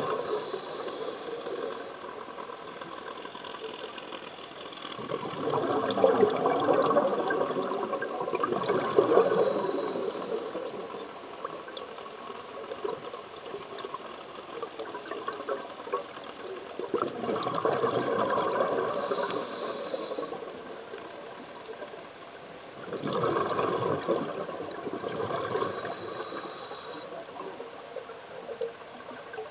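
Scuba diver breathing through a regulator underwater: a short hissing inhale through the regulator, then a longer rush of bubbling from the exhale, four breaths in a slow, even cycle.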